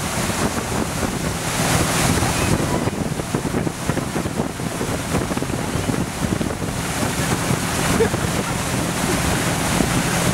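Wind buffeting the microphone over the steady rush of spray and wake from a moving ski boat, with the boat's engine humming underneath.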